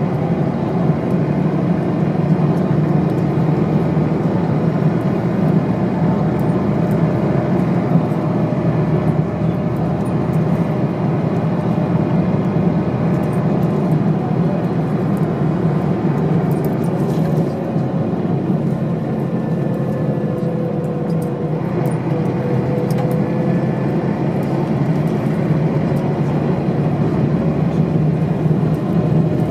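Volvo diesel engine of a 1997 Steyr SL 12 high-floor bus running under way, heard from inside the passenger cabin together with road noise. A faint whine runs over the steady rumble, dipping a little about two-thirds of the way through and then rising again.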